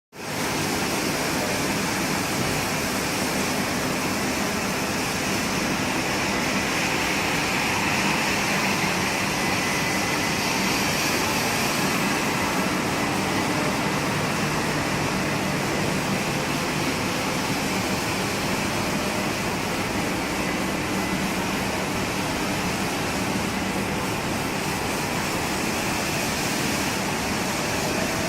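Small walk-behind wet floor scrubber running steadily: an even rush of motor and suction noise with a low hum underneath.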